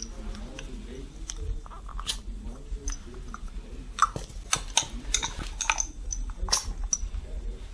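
Cupping-therapy suction cups being released and pulled off the skin: a series of sharp clicks and pops, most of them bunched between about four and seven seconds in.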